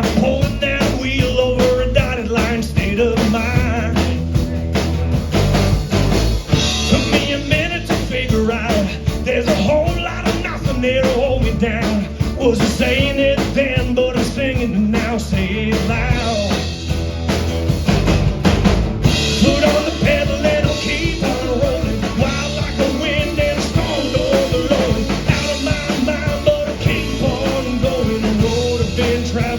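A rock band playing a full-band song with a steady drum-kit beat.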